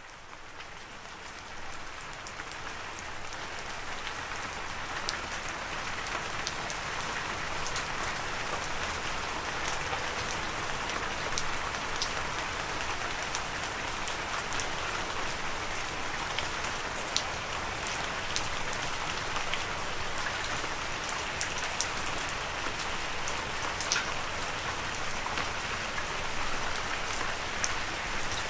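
Steady rain falling on a surface: an even hiss with scattered sharp drop ticks. It fades in from quiet over the first few seconds, then holds steady.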